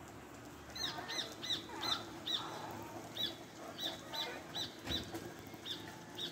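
A bird calling a quick series of short, arched chirps, about two to three a second, starting about a second in, over the steady hiss of rain falling on trees and pavement.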